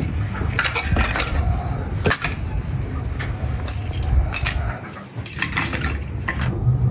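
Split dry firewood logs knocking and clinking against each other as they are set onto a pile, a string of short sharp knocks over a steady low rumble.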